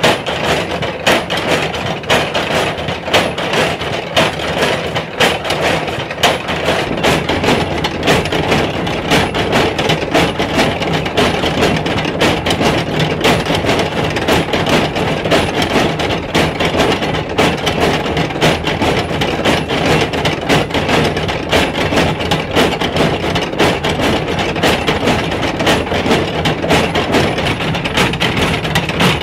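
Mill's mechanical chili-pounding machine: a row of pestles stamping into wells of red pepper powder, a fast, continuous rhythm of knocks over a steady motor hum, like a train running.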